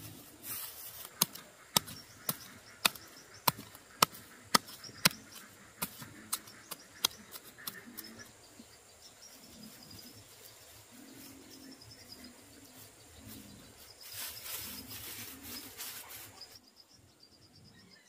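Dry rice-straw mulch rustling as seedlings are set into the soil by hand, with a run of about eleven sharp ticks, roughly two a second, in the first several seconds, fading toward the end of the run.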